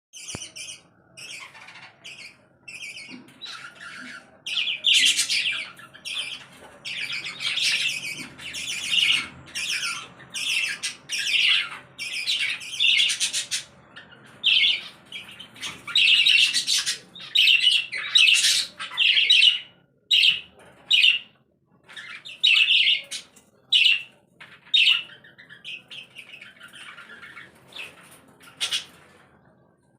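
Budgerigars and other cage birds chattering and squawking in a steady flurry of short, overlapping calls, thinning out near the end.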